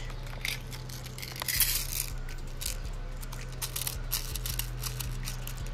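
Irregular plastic clicks and rattling of airsoft BBs being pushed from a speed loader into a shotgun shell, with short scraping rustles between the clicks.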